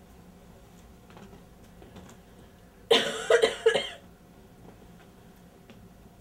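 A person coughing three times in quick succession, about three seconds in.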